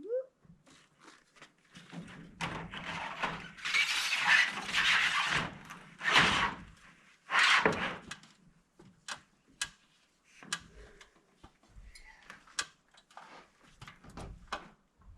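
Roofing panel being shifted and slid into place: several seconds of loud scraping and rattling, then scattered knocks and clicks.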